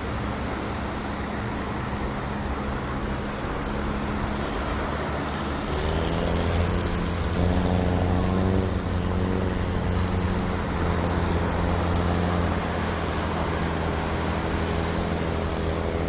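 A motor engine running steadily, growing louder and fuller from about six seconds in, over the wash of small waves breaking on the beach.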